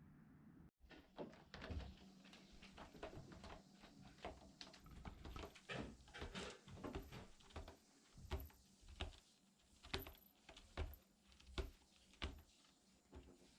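A run of light clicks and taps, irregular at first, then about one every three-quarters of a second near the end.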